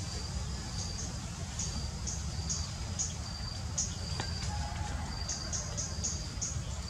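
Forest insects chirping: a steady high trill that breaks off and starts again, with short higher chirps about twice a second, over a low steady rumble.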